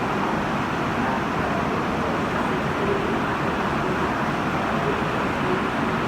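Steady rush of road noise from a car driving on a wet road in heavy rain.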